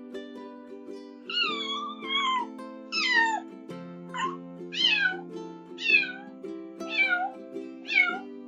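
A domestic cat meowing repeatedly, starting about a second and a half in, roughly once a second, each meow falling in pitch, over background music.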